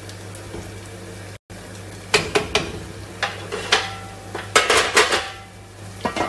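Metal kitchen utensils clinking and knocking against cookware: a run of sharp, ringing clinks starting about two seconds in, over a steady low hum.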